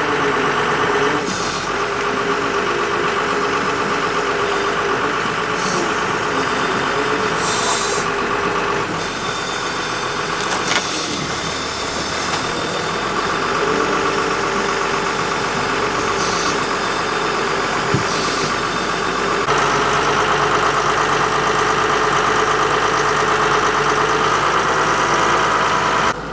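Large excavator's diesel engine running steadily, with a few abrupt shifts in its pitch.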